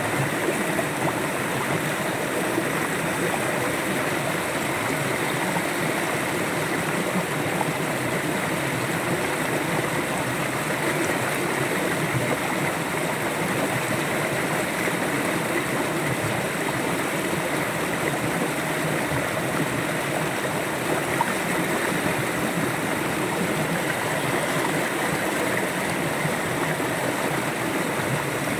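River water flowing and gurgling in a steady, even rush.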